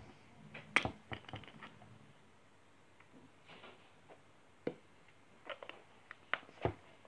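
A few short, sharp clicks and soft knocks from a drink bottle being handled: its cap opened, then the bottle lifted and drunk from.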